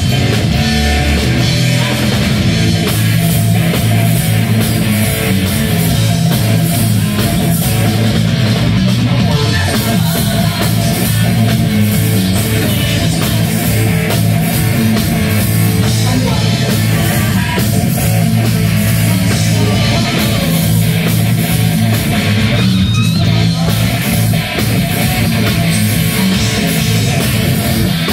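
Live heavy rock band playing loud: distorted electric guitars over a drum kit, with heavy bass.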